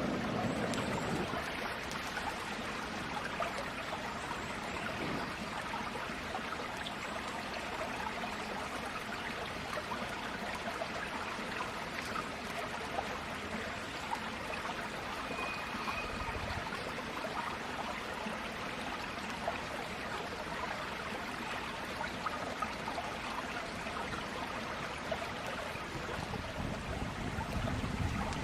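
Steady rush of flowing water, even throughout, with faint scattered ticks.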